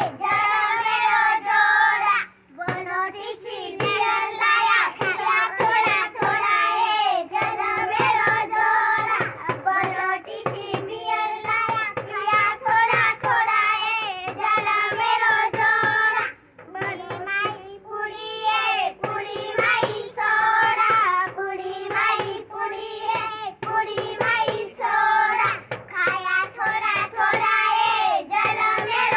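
A group of children singing a Banjara Holi folk song together, with rhythmic hand clapping. The singing breaks off briefly twice, about two and a half seconds in and again about sixteen seconds in.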